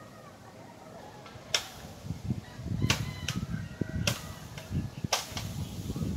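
Five sharp clicks at irregular intervals over a low, uneven rumble that grows louder about two seconds in.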